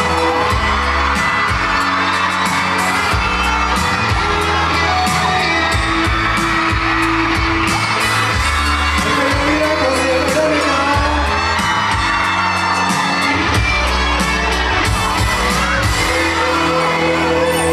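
Boy group's pop song performed live on stage: male voices singing over a backing track with a steady drum beat.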